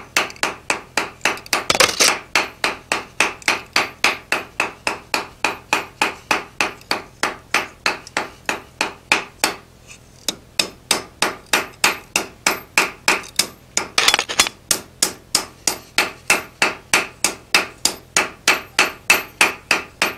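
Hand hammer striking a mild-steel fork tine on the anvil in a steady, quick rhythm of about four blows a second. These are light planishing blows at a low heat, rounding the tine. The hammering pauses briefly about halfway, and two blows ring out louder, one about two seconds in and one about three-quarters through.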